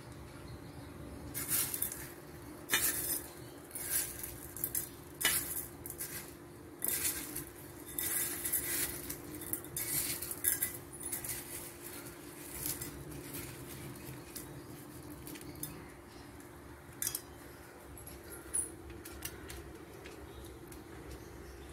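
A steel spoon clinking and scraping against a stainless-steel bowl, and crisp sev (omapodi) rustling and crunching as batter is pressed into it by hand. The clinks and crackles are busiest in the first ten seconds or so, with a few scattered clicks later over a faint steady hum.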